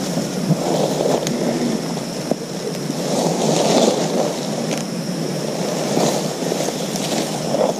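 Wind buffeting an outdoor camera microphone, a rushing noise that swells and eases, with a steady high-pitched hiss above it and a few short clicks.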